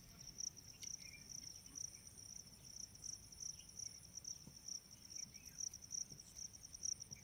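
Crickets chirring in the forest: a faint, steady, high-pitched trill that pulses rapidly, with a few faint short chirps over it.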